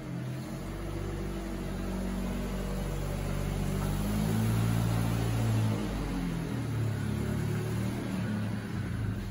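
Car engine running at low speed as the car creeps forward, growing louder about halfway through as it comes closer.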